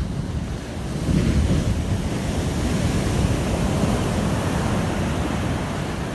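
Ocean surf: a large wave crashes onto a sandy beach and its whitewater rushes up the shore. The rush swells about a second in and slowly eases.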